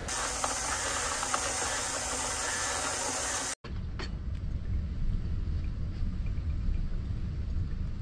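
Sea surf washing against a breakwater with a steady hiss. It cuts off abruptly about three and a half seconds in, and a low steady rumble with a few faint ticks follows.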